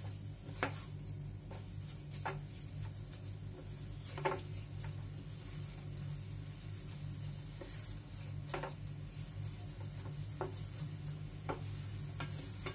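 Wooden spatula stirring and scraping a jaggery and grated coconut filling around a nonstick pan, with a short scrape or tap every second or two over a soft, steady sizzle. The sizzle is the jaggery syrup cooking down as the filling dries on medium heat.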